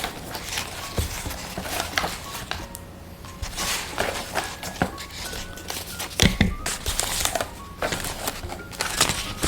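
Paper crinkling and rustling in irregular strokes as a handmade paper blind bag is handled and opened, with a faint steady music bed underneath.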